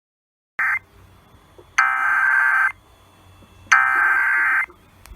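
Emergency Alert System SAME header: screeching digital data bursts. A short fragment comes about half a second in, then two full bursts of about a second each, about a second apart, with faint receiver hiss between them. The bursts mark the start of an emergency alert, here a fire warning.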